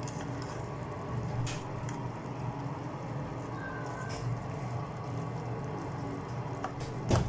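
Chicken wings and onions cooking in a pan of oyster-sauce mixture, a steady sizzle, with a few light utensil taps and one sharp clack near the end.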